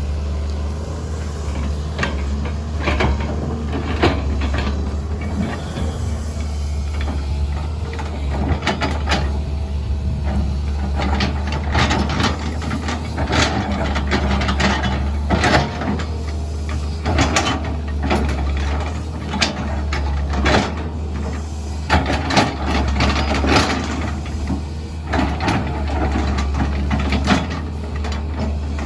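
SANY SY205C excavator's diesel engine running steadily under load, with many irregular knocks, clanks and scrapes, as of the bucket and steel working hard ground, coming thicker from about a third of the way in.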